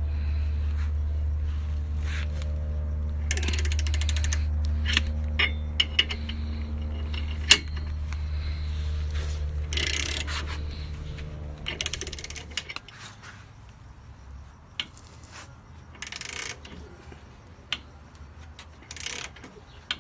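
Metal tools clicking and clanking during car suspension work, with ratchet-like clicks and several short hissing bursts. A steady low hum runs underneath and stops about two-thirds of the way through.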